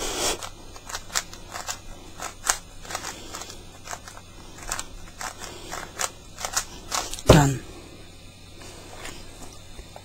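Plastic Rubik's cube being turned fast by hand: a run of quick clicks and clacks as its layers snap round, the final turns of a timed solve. A single louder thump comes about seven seconds in, after which the clicks thin out.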